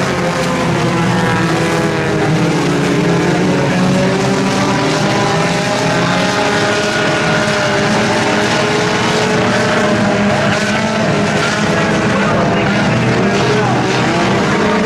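A pack of compact-class race cars running at race speed, several engines running at once, their pitches rising and falling as the cars go around the track.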